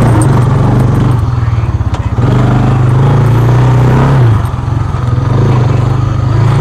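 Honda ATV engine running steadily as the quad rides along a dirt trail. Its note drops and quietens about four seconds in as the throttle eases off.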